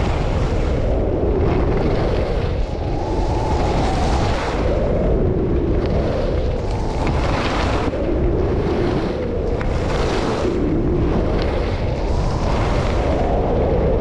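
Wind buffeting the microphone during a downhill ski run: a steady loud rumble, with a hissing rush of skis scraping over snow swelling every second or two as the skier turns.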